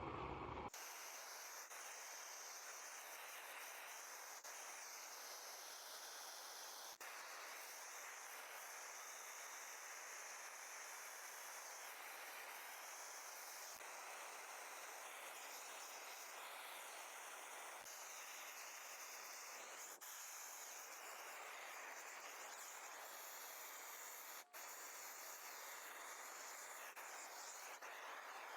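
Faint, steady hiss of a torch flame held on a board to char the wood, with a few faint clicks.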